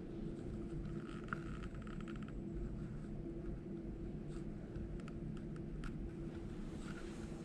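Indoor room tone: a steady low hum with a faint light patter about a second in and a few soft clicks later on.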